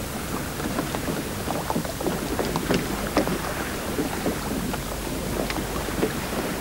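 Shore sound of small waves washing on a stony beach, with a scatter of small irregular clicks and knocks of stones.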